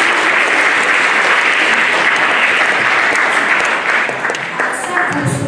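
Audience applauding, dying away in the last second or so.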